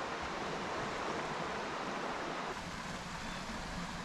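Steady rush of water from a small waterfall and rocky rapids, a constant hiss whose tone shifts about two and a half seconds in.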